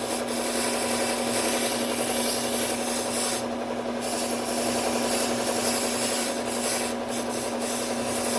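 Low-speed belt sander with a Cubitron P120 belt running while a steel kitchen-knife edge is ground on it: a steady motor hum under a grinding hiss, apexing the edge and raising a burr. The hiss drops out briefly about three and a half seconds in, and flickers a few times near the end, as the blade comes off the belt.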